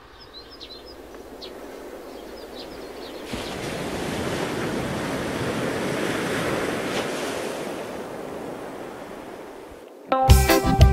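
A rushing sound like surf swells up over a few seconds and dies away. About ten seconds in, loud sega music with a beat starts abruptly.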